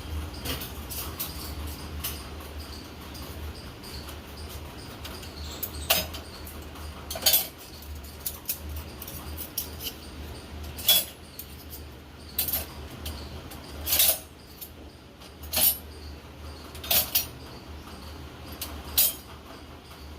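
Dishes and cutlery clinking sharply about eight times at uneven intervals, over a steady low hum.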